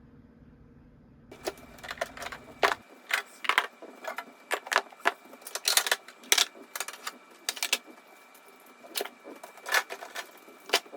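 Irregular clicks and knocks of small items being handled and set down, starting about a second in and going on in quick, uneven taps.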